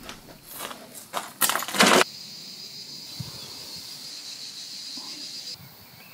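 A few sharp metallic clinks and rattles, the loudest just before two seconds in, then a faint steady high-pitched hiss that cuts off suddenly about five and a half seconds in.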